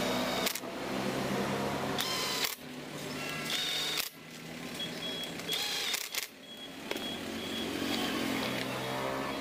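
Cordless drill-driver whirring in a few short bursts as it drives screws into a chainsaw's plastic housing, with clicks and knocks between runs over a steady low hum.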